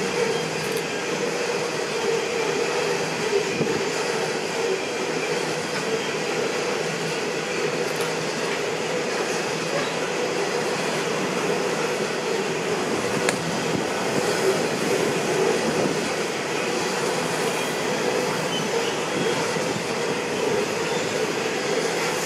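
A train rolling past steadily, the constant noise of its wheels running on the rails.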